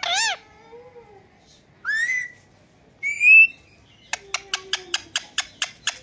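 Indian ringneck parakeet giving short rising whistled calls and its mimicked cat "miaow". From about four seconds in comes a quick run of sharp clicks, about six a second.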